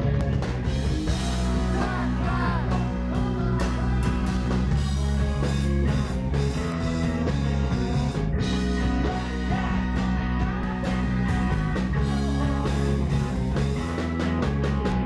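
Live rock band playing loud: electric guitars over a drum kit, recorded from the crowd.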